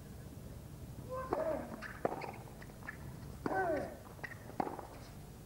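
Tennis rally on a hard court: the serve and then racket-on-ball hits and bounces as sharp pops about once a second. Brief falling squeals come alongside several of the hits.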